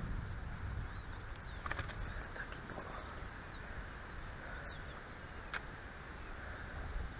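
Wind rumbling on the microphone, with a few short, falling bird chirps and a couple of sharp clicks.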